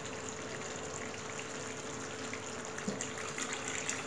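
Water poured in a steady stream into thick masala gravy in a frying pan.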